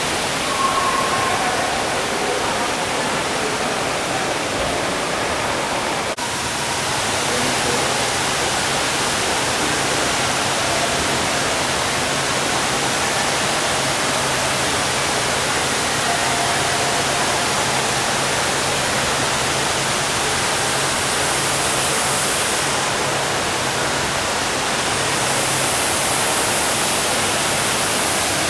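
Indoor waterfall falling steadily, an even rush of water. A faint low hum comes in about seven seconds in and stops a few seconds before the end.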